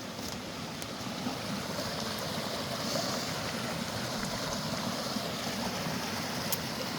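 Steady rushing of mountain creek water, with a few faint ticks over it.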